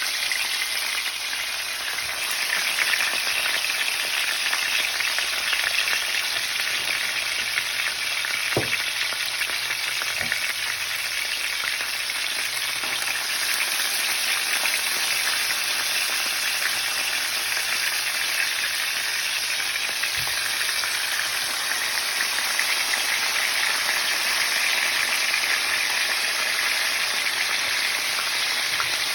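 Tilapia pieces frying in hot oil in a pan: a steady, dense sizzling crackle with a few sharp pops of spitting oil.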